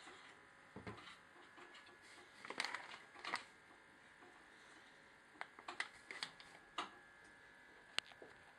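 Faint handling noises: scattered small clicks, taps and rustles, a few grouped around the middle and a sharper click near the end, over a faint steady hum.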